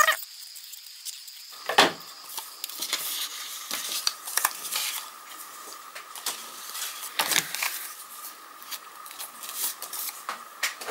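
Paper being handled and cut at a craft table: scattered rustles and small clicks, with two louder knocks, one about two seconds in and one past seven seconds.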